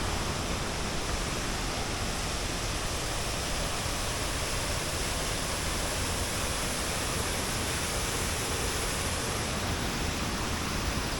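Rushing water running steadily, an even wash of noise with no breaks.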